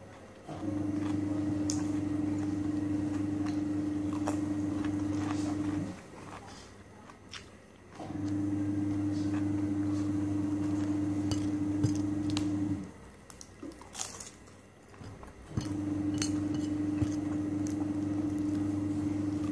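A steady low hum comes on three times for about five seconds each, with short gaps between. In the gaps, and faintly under the hum, there is close-up chewing: crunching bites and wet mouth sounds from eating cucumber slices and spring rolls.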